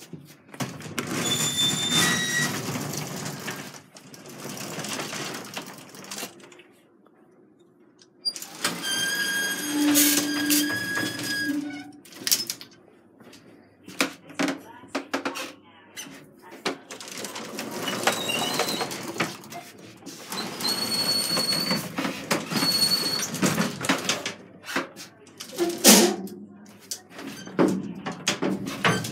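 Doors of an old gated lift being worked by hand: a metal outer swing door opened and a collapsible lattice gate rattling and clanking, with irregular knocks and clicks and a few short pitched tones.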